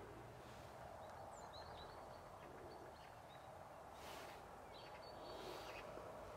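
Near silence, with a few faint, short high chirps of small birds scattered through it.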